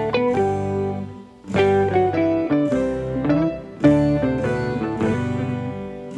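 Instrumental background music: a melody of plucked, guitar-like notes in short phrases.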